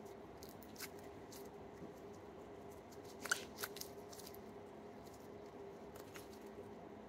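Faint clicks and small pops of pink slime being stretched and folded by hand, with a quick cluster of louder clicks a little past the middle.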